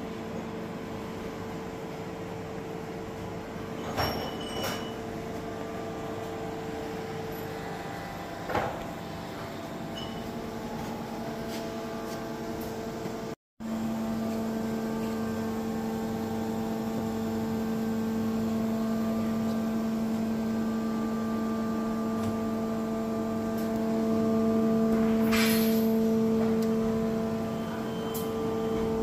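Steady electrical and mechanical hum of a powered-on Okuma MC-4VA CNC vertical machining center, a drone with a couple of light clicks early on. It cuts out for a moment about halfway through and comes back louder, swelling near the end.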